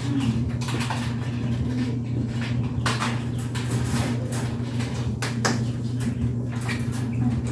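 A steady low hum, with scattered short knocks and rustles from the wire chicken pen and its bedding being handled.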